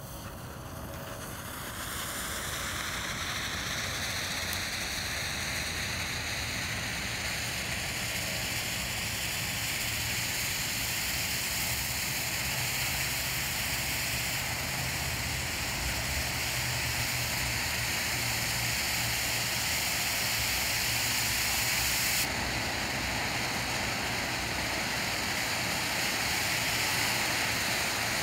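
Kozy Kone cone fountain firework spraying sparks with a loud, steady hiss. It builds up to full strength about two seconds in, the hiss rising in pitch as it does, and then gushes evenly.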